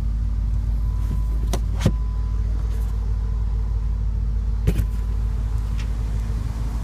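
The BMW M6 Gran Coupe's twin-turbo V8 idling as a steady low rumble with a faint hum. A few short clicks come about two seconds in and again near five seconds.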